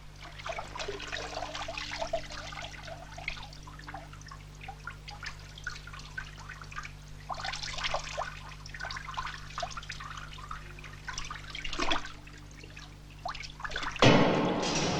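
Water trickling and dripping in many small, irregular splashes over a steady low hum. About a second before the end a louder, fuller sound cuts in abruptly.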